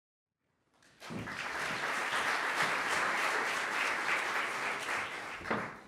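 Large audience applauding: the clapping swells in about a second in, holds steady, and fades out near the end.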